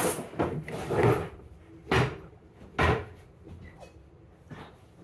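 Kitchen clatter: four short knocks and bangs about a second apart, like cupboard doors or drawers being shut, then only faint sounds for the last two seconds.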